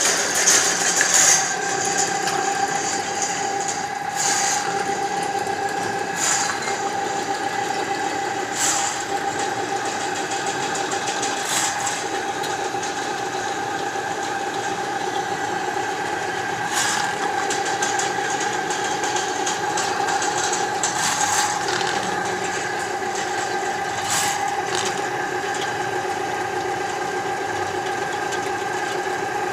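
Electric drain-cleaning machine running steadily with a constant whine, and a sharp knock every few seconds.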